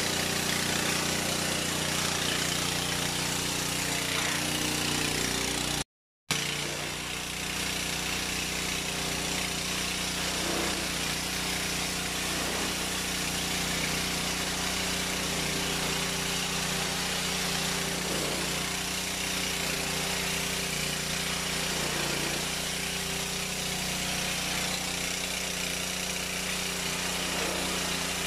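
Ferrex petrol pressure washer's engine running steadily, with the hiss of the high-pressure water jet. The sound drops out completely for a split second about six seconds in.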